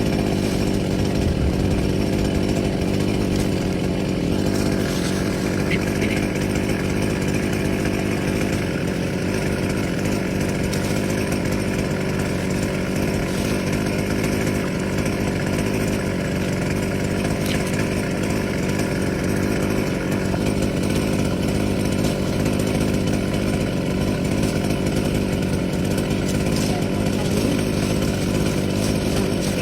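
Chainsaw running steadily, cutting through kapok wood.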